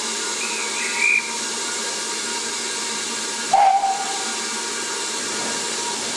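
BR Standard 4MT 4-6-0 No. 75078 standing with steam hissing steadily. About a second in comes a short, high, warbling whistle, and about three and a half seconds in a short, louder blast of the locomotive's steam whistle.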